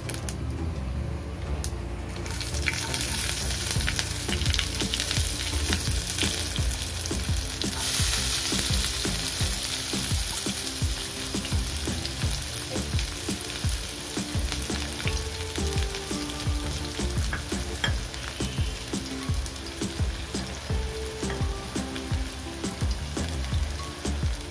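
Tempering in a kadai: cumin and mustard seeds sizzling and crackling in hot oil, then chopped onion frying in the oil. A steady sizzle full of small crackles, which gets louder from about three seconds in.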